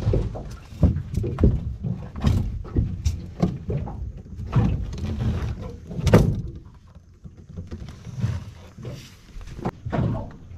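Irregular knocks and thumps of a crab pot and mud crabs being handled on an aluminium boat's carpeted deck, the loudest thump about six seconds in.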